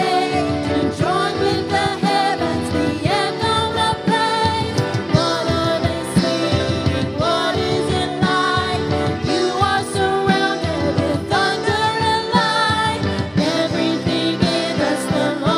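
Worship music: a singer with vibrato leads a song over sustained instrumental accompaniment.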